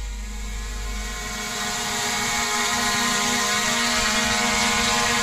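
Fixed-wing surveillance drone flying overhead, its propeller motor giving a steady hum with many even overtones, growing a little louder about a second and a half in.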